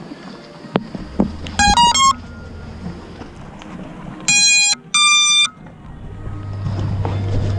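FPV drone powering up: its motors play the BLHeli_32 ESC start-up tune, a quick run of short rising notes, then two longer beeps, the second higher, the sign that the ESCs are armed and getting signal. A steady low hum runs beneath, and a few clicks come before the tones.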